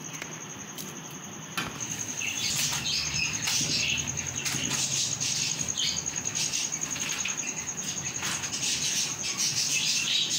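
Silicone spatula stirring and scraping sugar through a milk mixture in an aluminium pot, an irregular scratchy rustle that starts about a second and a half in. A steady high-pitched tone runs underneath throughout.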